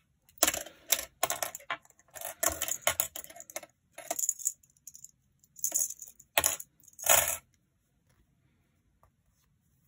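Metal binder clips being unclipped one after another and set down, a series of sharp metallic clicks and clinks in clusters that stops about seven seconds in.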